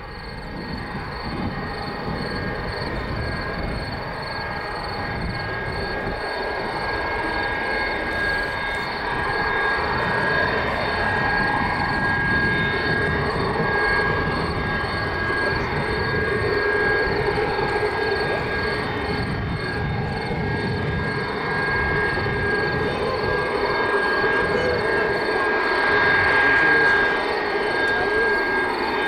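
Three Kuznetsov NK-8 turbofan engines of a Tupolev Tu-154B-2 running at takeoff power: a continuous rumbling roar with a steady high whine on top, growing gradually louder.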